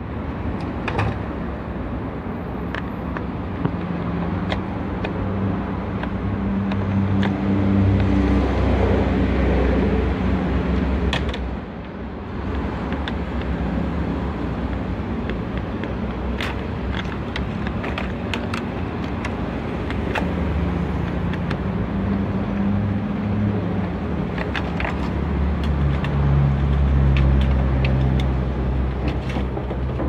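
A low, steady engine-like rumble with a hum that drifts in pitch and swells twice, and scattered small sharp clicks as the plastic door-switch assembly is handled.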